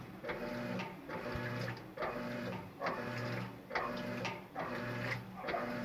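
Electrolux LES11 11 kg washing machine agitating a load of bed sheets. The motor hums in short strokes, about one a second and reversing each time, with a brief swish or clunk between strokes.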